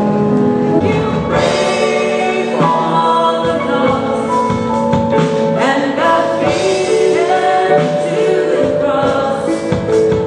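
A roomful of people singing a gospel song together in held, slow notes, led by a woman singing into a microphone.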